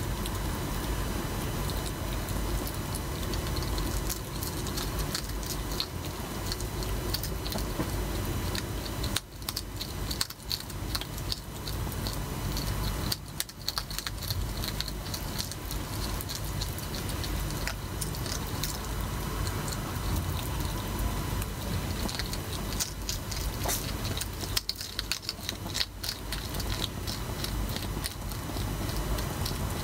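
Several hedgehogs crunching dry pellet food from dishes: a dense scatter of small irregular clicks and crunches over a steady background hiss with a faint hum, easing off briefly a few times.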